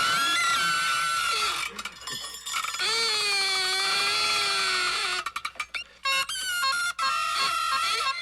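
Toy noisemakers. A high steady squeal gives way to a lower tone that wavers up and down for about two seconds. Then comes a quick run of rattling clicks and another high squealing tone.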